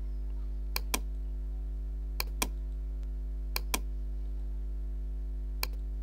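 Computer mouse clicking: three pairs of quick clicks about a fifth of a second apart, then a single click near the end, over a steady low hum.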